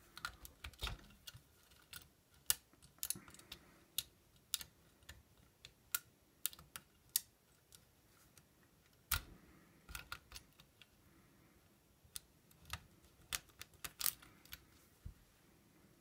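Lock pick and tension wrench working the pins of an old Eagle mailbox lock: irregular small sharp clicks, the sharpest about nine seconds in.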